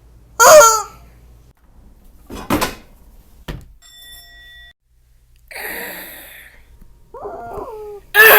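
A string of homemade cartoon sound effects: a short vocal cry falling in pitch, a thud, a click, then a brief bell-like ding. A noisy rush follows, then more vocal cries falling in pitch near the end.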